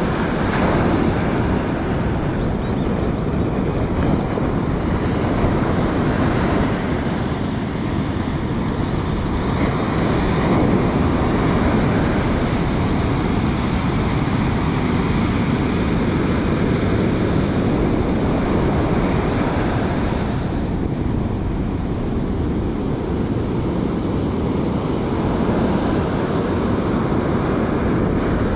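Surf breaking along the shore, a continuous rush of waves that swells and eases every few seconds, with wind buffeting the microphone.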